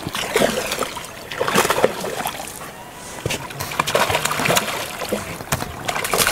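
A hooked fish thrashing at the water's surface close to the bank, in repeated irregular splashes as it is played in to the landing net.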